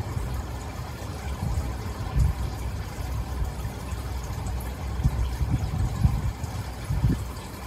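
Wind buffeting the microphone: an uneven low rumble that surges in gusts.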